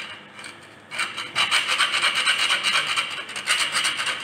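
Pepper mill grinding black peppercorns: a rapid ratcheting rasp that starts about a second in and comes in two spells with a brief break between them.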